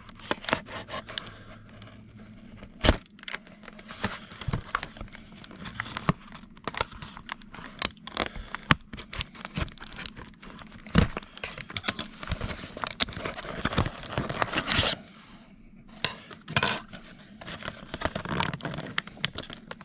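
A blade cutting into a plastic blister package and the plastic being worked and pried open, with many scattered clicks, scrapes and crinkles and a few sharper knocks.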